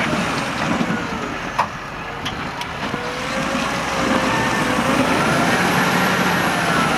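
New Holland tractor engine running hard under heavy load as it drags a loaded trailer through deep mud, its pitch wavering up and down. A few sharp clicks come about two seconds in.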